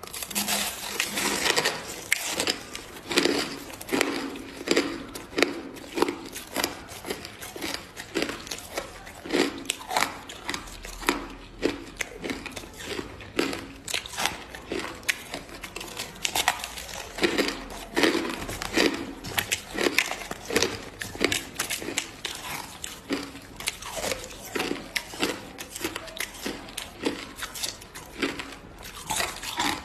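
Hard crushed ice being bitten and chewed up close to the microphone: a steady run of crisp crunches, a few a second.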